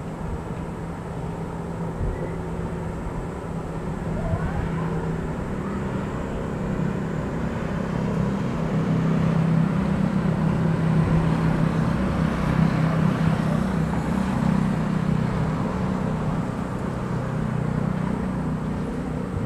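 Low engine rumble with a steady hum, as a vehicle passes: it swells to its loudest around the middle and eases off near the end.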